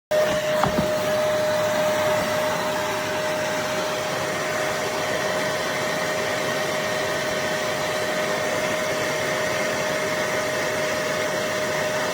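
BISSELL Little Green portable carpet and upholstery cleaner running, its suction motor giving a steady rushing noise with a constant whine. There is a brief click about half a second in, and the sound stops abruptly.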